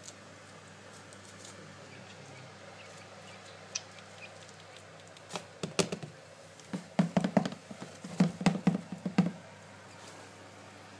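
A faint steady hum, then a flurry of sharp knocks and rustles for about four seconds from around halfway through.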